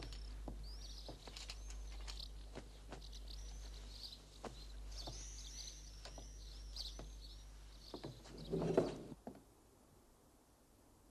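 Small birds chirping and twittering over a low hum, with scattered light clicks and rustles. About eight and a half seconds in comes a brief louder rustle, and then the sound drops to near silence.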